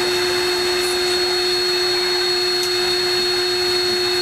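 Sprinkles cupcake ATM's robotic retrieval mechanism running as it fetches a cupcake: a steady electric motor whine with a thin high tone above it.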